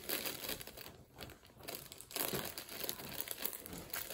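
Plastic bag of brownie mix crinkling as it is handled and cut open with scissors, in irregular crackles with a short lull a little over a second in.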